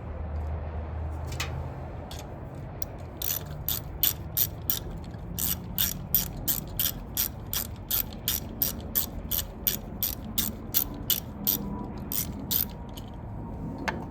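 Hand ratchet wrench clicking as it backs out a bolt on the engine, a steady run of about three clicks a second starting a few seconds in and stopping shortly before the end.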